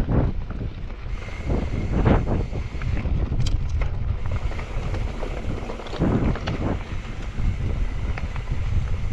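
Wind buffeting the microphone of a camera riding on a moving mountain bike, a heavy low rumble, with irregular clatters and knocks from the hardtail bike jolting over rough trail.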